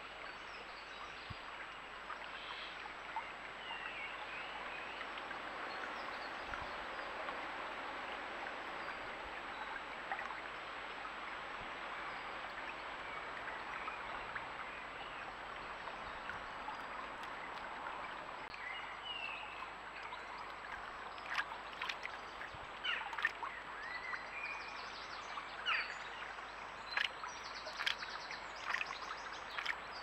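Shallow stream flowing steadily over a stony bed, with short bird chirps now and then. From about two-thirds of the way through, a scatter of sharp clicks and small splashes joins the water sound.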